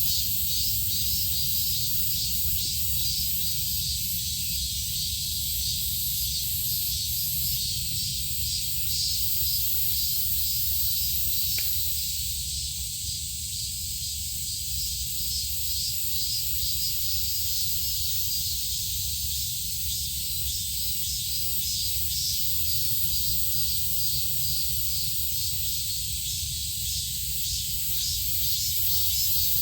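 Steady outdoor ambience: a constant high hiss over a low rumble. A faint click comes about twelve seconds in and another near the end.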